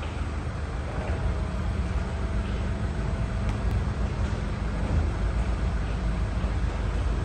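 Steady low mechanical rumble with a faint hum underneath.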